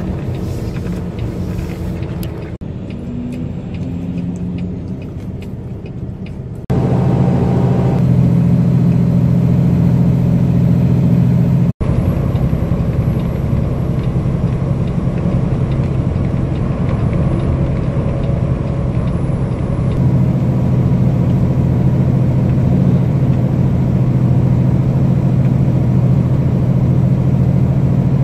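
Semi-truck's diesel engine and road noise heard from inside the cab while driving: a steady low drone. It jumps louder at a sudden cut about a quarter of the way in and drops out for an instant near the middle.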